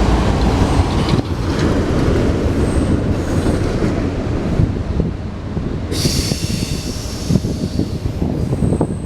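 Freight train of autorack cars rolling past close by: a steady rumble of wheels on rail with rapid clattering over the joints, and thin wheel squeals, the loudest about six seconds in lasting a second or so.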